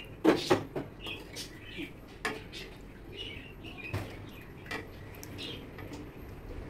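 A serving spoon clinking and scraping against a ceramic bowl while fish curry is ladled in: a quick cluster of clinks in the first second, then single knocks now and then. Faint short chirps sound in the background.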